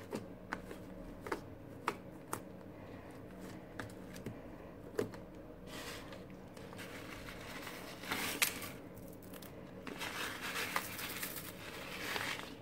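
Small plastic slime beads clicking now and then as they drop into a plastic tub. In the second half come several short stretches of rattling and rustling as more beads are poured onto the slime.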